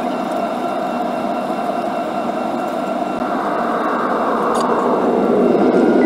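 Jet airliner's engines heard inside the cabin while taxiing: a steady rushing hum with a few thin, steady whine tones above it, growing a little louder in the last couple of seconds.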